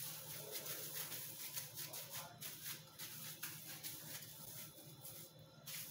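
Faint crinkling and rustling of plastic film as hands press and shape a rolled ground-meat roulade, in small irregular handling noises.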